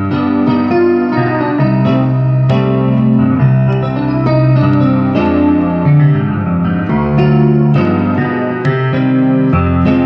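Keyboard instrument being played: a slow piece of sustained chords that change about every second over steady low bass notes.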